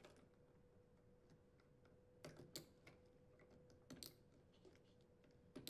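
Faint clicks of plastic wire connectors being pushed onto the spade terminals of a washing machine water inlet valve's solenoid coils: a few separate clicks, the first about two seconds in, over a faint steady hum.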